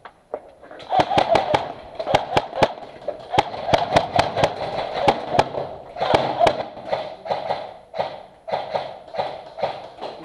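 Airsoft guns firing a rapid, irregular string of sharp cracks, several a second, echoing in a hard-walled building interior.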